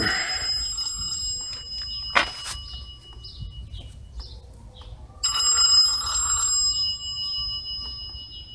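A metal part or tool struck twice, about five seconds apart, each time ringing out like a bell with a clear high tone that dies away over a few seconds. A single sharp click comes between the two rings.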